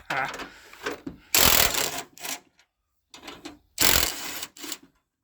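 Two short bursts of a power tool loosening bolts on a car's body brackets, the first about a second long and the second about half that, with small metallic clicks around them.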